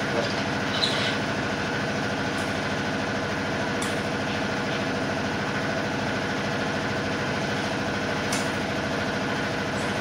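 A machine running with a steady, even hum, with a few faint clicks over it.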